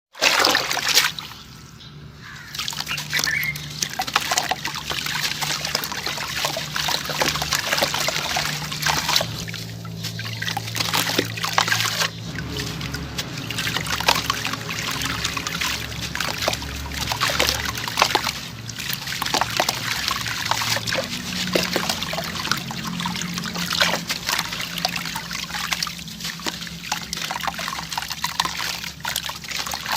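Crunchy chunks of sand-cement and dirt being crushed and crumbled, giving a dense, continuous crackling with gritty trickling. There is a short quieter pause about two seconds in.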